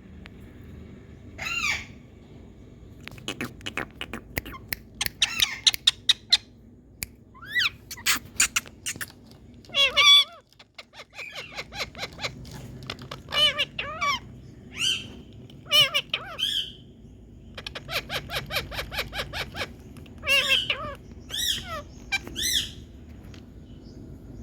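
Rose-ringed parakeets (Indian ringnecks) calling: high-pitched, harsh single calls mixed with fast runs of short repeated notes, with gaps between bouts.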